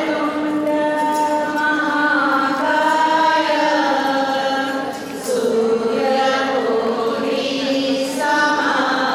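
A woman singing a slow Gujarati devotional song (bhajan) in long, held notes.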